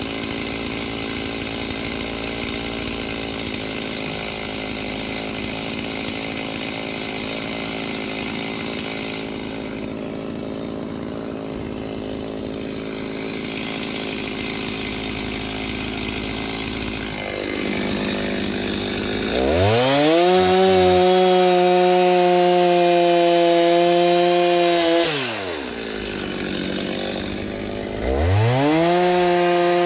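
Two-stroke chainsaw cutting through dry oak firewood under load. About 17 seconds in it revs up to a steady high whine at full throttle, drops back about 25 seconds in, and revs up again near the end.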